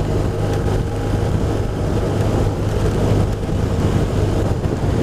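BMW R1200RT's flat-twin engine running steadily at road speed, under a steady rush of wind and road noise.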